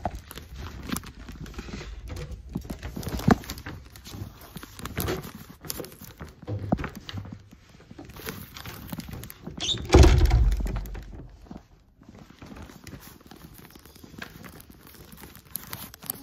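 Handling noise from a phone carried against a wrapped flower bouquet: irregular knocks and rustling of the wrapping, with one loud thump about ten seconds in.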